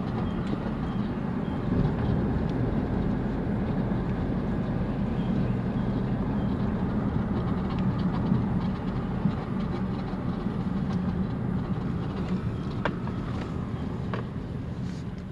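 A vehicle driving: steady, low road and engine rumble.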